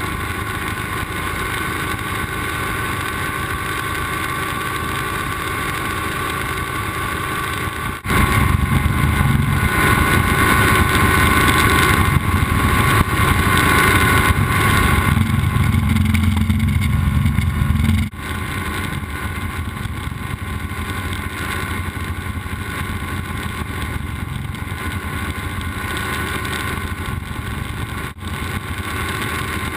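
Light helicopter's engine and rotor noise heard from inside the cockpit during takeoff and climb, steady and loud. About a quarter of the way in it jumps abruptly to a louder, deeper stretch that drops back just as suddenly past the middle.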